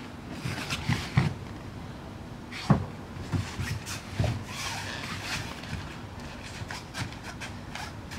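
Two dancers' bodies, hands and bare feet thudding and sliding on foam floor mats, with their breathing. The thumps come irregularly, and the loudest lands a little under three seconds in.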